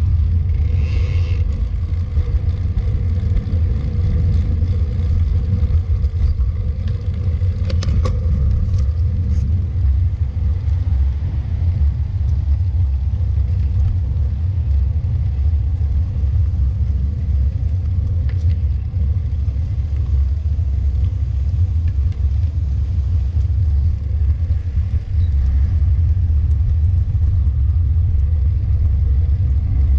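Steady low rumble of wind buffeting the microphone and road noise while riding a road bike.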